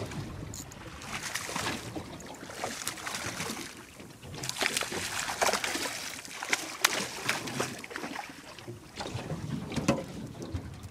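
A small tuna thrashing and splashing at the water's surface beside a boat as it is reeled in, with the splashes busiest through the middle, over the wash of the sea against the hull.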